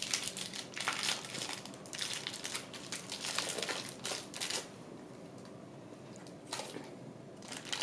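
Wrapping crinkling and crackling as it is torn and peeled off a small toy capsule by hand, busy through the first four seconds or so, then a quieter pause and a few more crinkles near the end.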